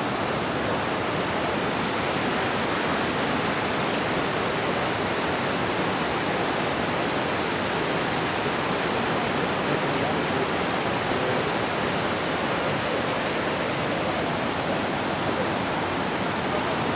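Iguazú Falls rushing steadily: an even, unbroken noise of masses of falling water.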